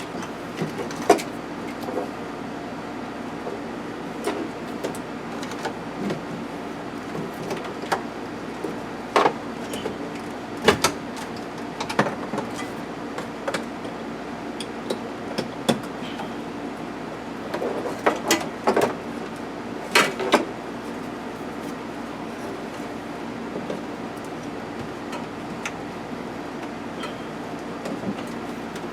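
Scattered clicks and knocks of car interior parts and tools being handled during dashboard work, with a busier run of knocks a little past the middle, over a steady background hum.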